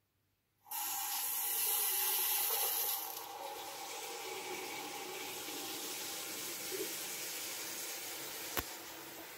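Water rushing and hissing through a chrome angle stop valve on an electric water heater's supply hose as the valve is turned open, starting suddenly and loudest for the first couple of seconds before settling to a steady rush. A single sharp click near the end.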